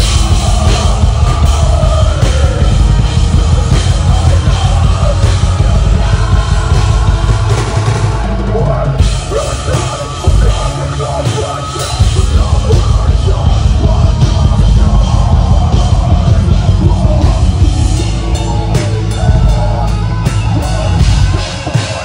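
Loud heavy metal music with a pounding drum kit, continuous throughout.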